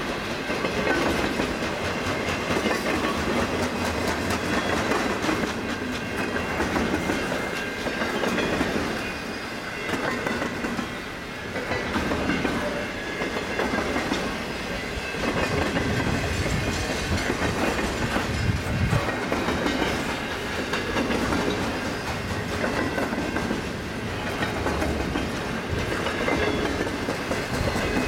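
Intermodal freight cars rolling past, double-stack container cars and then trailer-on-flatcar cars, with a steady rumble and the wheels knocking irregularly over the rail joints. The level swells and dips as different cars go by.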